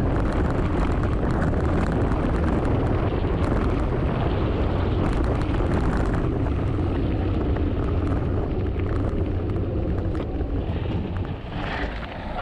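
Mountain bike riding fast over a rough trail: wind buffeting the microphone over a steady tyre rumble, with many small clicks and rattles from the bike. It eases off a little near the end.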